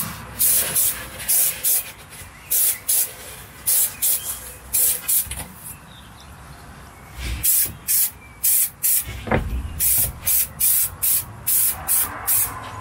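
Aerosol can of spray carpet adhesive hissing in a rapid series of short bursts, as the glue is sprayed onto the carpet backing and the van panel, with a pause of a second or two about halfway through.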